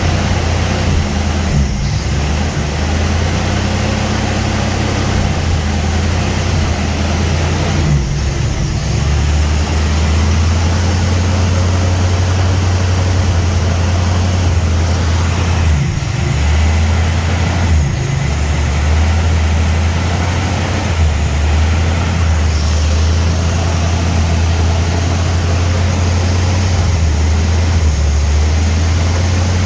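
Engine idling unevenly, its speed dipping and recovering several times rather than holding steady: a surging idle.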